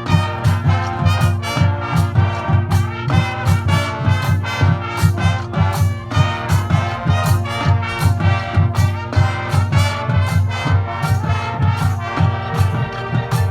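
Marching band playing a brass-led passage over a steady drum beat of about two strikes a second, with a strong bass line underneath.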